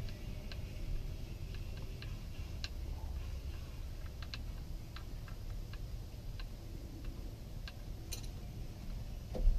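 Light, irregular metallic clicks and ticks of a hand tool and small metal parts as an oil-line clamp and fittings are worked loose on an engine, over a steady low rumble, with one louder knock near the end.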